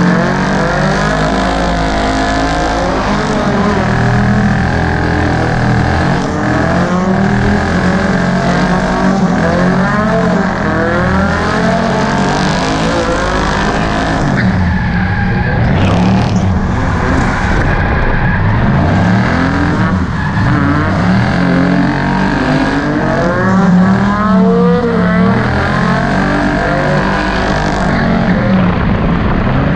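A Volvo drift car's engine revving up and down as it slides sideways on wet asphalt, with some tyre squeal. Under it runs the steady hum of another engine.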